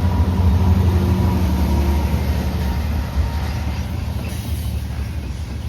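Freight train passing: a steady low diesel rumble with faint steady tones, slowly fading.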